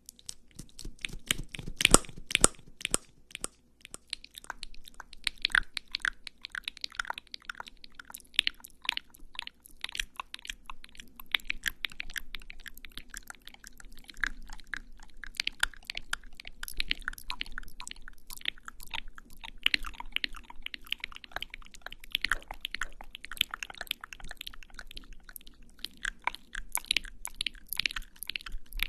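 Lipstick being applied to the lips right against the microphone: a dense, irregular run of crackly clicks and sticky, wet mouth sounds.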